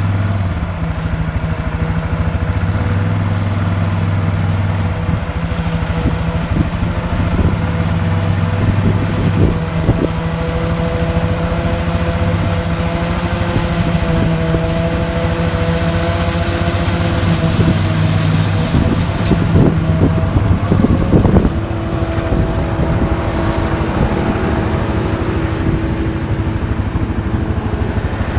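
Claas self-propelled forage harvester chopping maize, with a tractor running alongside, their engines droning steadily. About two-thirds of the way through, as the machines pass close, a hiss swells and cuts off sharply, and the engine tones shift in pitch.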